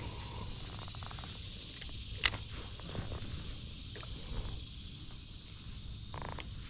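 A spinning reel being handled on a fishing rod, with one sharp click about two seconds in and a few fainter ticks, over a steady high hiss of insects.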